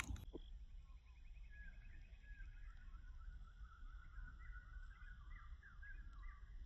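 A bird singing a long run of quick, repeated chirps over a low steady rumble.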